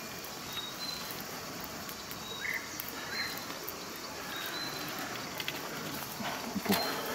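Quiet outdoor ambience with a steady low hiss and faint, short high chirps scattered through it. Near the end come a few light clicks as the wire grill basket of fish is handled over the embers.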